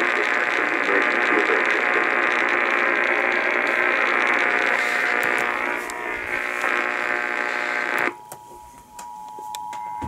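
A radio hisses with static over a steady hum and cuts off abruptly about eight seconds in. A fainter steady two-tone signal, the Emergency Alert System attention signal from a TV, takes over with a few clicks.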